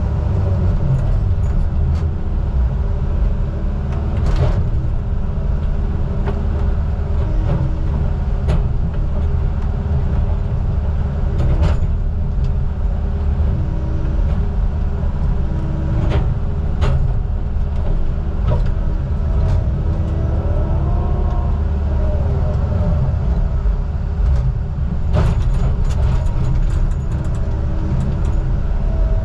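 Diesel engine of heavy logging equipment running steadily with a deep, constant drone. Scattered sharp knocks and clanks come over it, and a brief whine rises and falls about twenty seconds in.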